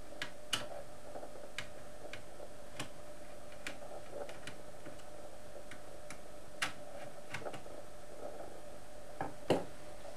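Screwdriver turning a small screw out of an LCD monitor's main circuit board on its metal chassis: scattered light clicks and ticks at irregular intervals, with a louder click near the end, over a steady faint hum.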